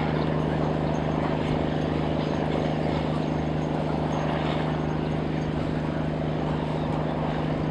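Diesel engine of a small river tugboat running steadily under load as it tows loaded barges: a constant low drone with an even throb.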